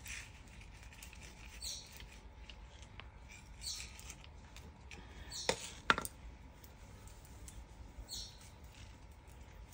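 Soft, brief rustles and scrapes repeat every couple of seconds as carrots are worked out of the soil among their leafy tops with a small hand tool. Two sharp clicks or snaps come close together just past halfway.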